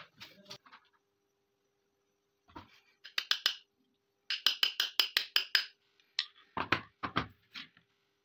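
Small steel hammer tapping a pin into a pistol slide: a quick run of light, ringing metallic taps, about six a second, then a few heavier, duller knocks near the end.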